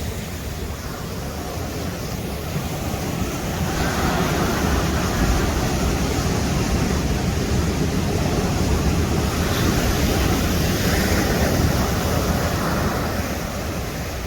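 Ocean surf breaking and washing up the shore, a steady rush that swells about four seconds in and eases off near the end.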